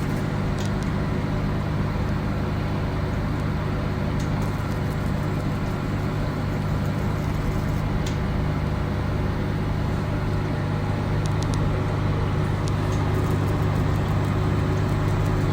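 BR314 CO2 laser machine running with a steady low hum, with a few faint ticks scattered through it as the treatment starts.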